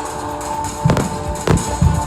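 Background music with held tones and drums, with sharp percussive hits about a second in and twice more near the end.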